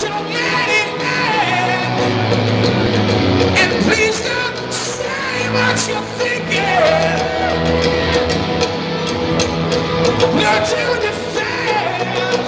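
Live rock band playing: electric guitars and drums under a male lead singer.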